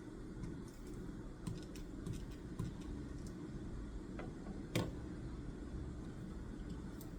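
Scattered light taps and clicks from desk work, with one sharper click near the middle, over a steady low background hum.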